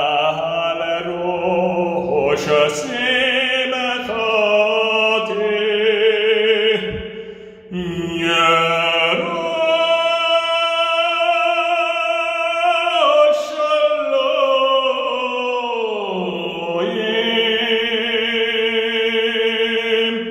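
A man singing slow, drawn-out notes with a wavering vibrato. The pitch glides down between some notes, with a short break about seven and a half seconds in.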